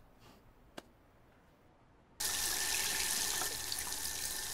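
Faint room tone with a single light click, then about two seconds in a tap is turned on and water runs steadily into a sink.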